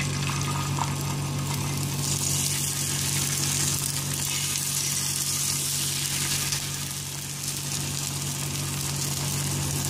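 Beaten egg sizzling on a hot oiled iron tawa as it is poured and fries, a steady hiss, over a constant low hum.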